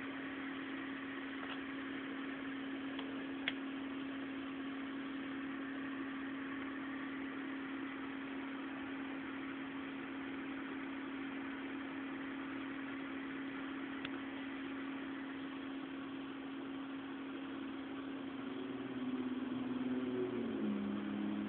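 A steady, low machine hum with background hiss and a few faint clicks; near the end, further lower tones join in and step down in pitch.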